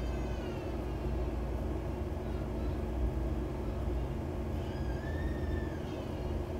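Steady low rumble and hum of background noise, with a faint wavering high-pitched tone near the start and again about five seconds in.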